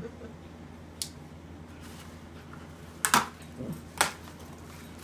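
Bubble-wrap plastic crinkling in a few short, sharp crackles as it is cut and pulled open by hand: one about a second in, then several close together around three to four seconds in.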